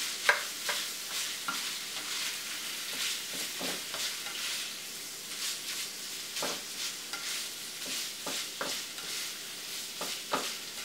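Ground sausage sizzling in a skillet while a slotted spatula stirs and chops it, scraping and tapping against the pan. One sharper knock of the spatula about a third of a second in is the loudest sound.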